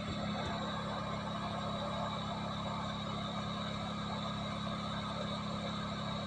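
Hot-air rework station blowing steadily on low airflow, heating an eMMC chip to solder it onto a phone circuit board: an even rush of air over a low hum.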